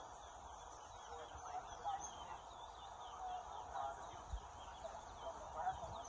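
Caged towa-towa (chestnut-bellied seed finch) singing faintly: a quick, continuous run of short, high, falling whistled notes.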